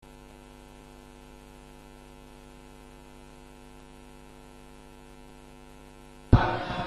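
Steady electrical mains hum, a buzz made of a stack of even tones carried on the audio feed. About six seconds in, a sudden loud bang cuts in and dies away over about half a second.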